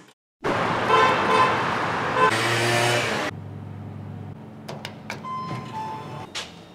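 Vehicle noise: something passes close and loud for about three seconds, with a brief horn-like toot near the end of that pass. It then drops to a quieter, steady low hum with a few scattered clicks.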